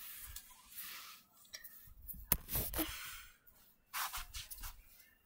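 Soft rustling and shuffling as plush stuffed toys are handled and moved about on a carpet, with one sharp click a little over two seconds in.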